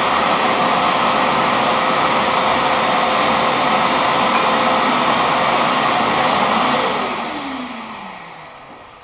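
Shop vacuum for dust collection running with a loud, steady rushing hiss and hum. It is switched off about seven seconds in and winds down with a falling whine.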